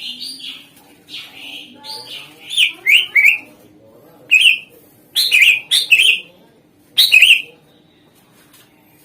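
Cucak ijo (greater green leafbird) singing: loud, sharp whistled notes that sweep down, delivered in short bursts of a few notes with brief pauses between them.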